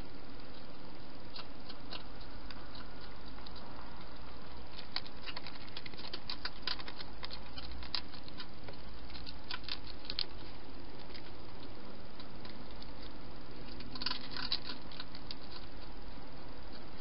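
A cat eating from a plastic bowl, chewing and crunching in clusters of quick sharp clicks, busiest about a third of the way in and again near the end, over the steady hiss of a trail camera's microphone.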